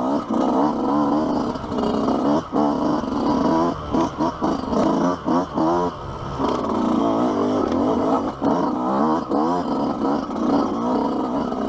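Yamaha YZ125's single-cylinder two-stroke engine revving hard while being ridden, its pitch rising and falling with the throttle and dropping away briefly several times as the throttle is shut off and opened again.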